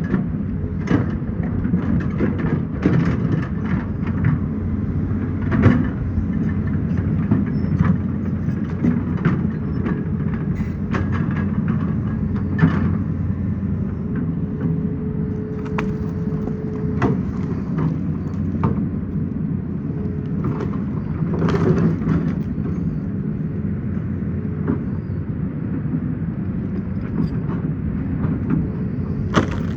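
Excavator's diesel engine running steadily under load, with scattered knocks and clatter of rock and the bucket. A steady higher whine holds for several seconds near the middle.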